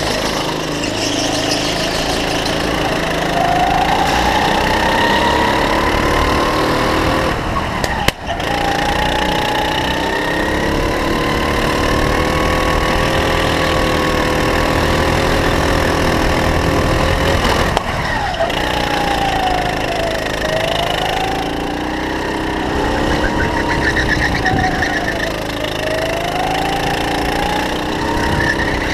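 Go-kart engine running under throttle, heard from the driver's seat: its pitch climbs and holds high on the straights, then falls and picks up again twice near the end as the kart slows for corners.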